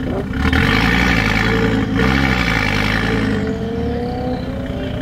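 Audi TT-RS's 2.5-litre turbocharged five-cylinder, breathing through a Milltek non-resonated cat-back exhaust, revved hard while stationary. The revs are held high twice, with a short dip near the two-second mark, then drop back toward idle.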